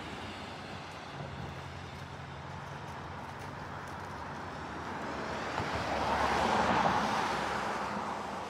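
A road vehicle passing: a steady rushing noise swells to its loudest about six to seven seconds in, then fades away.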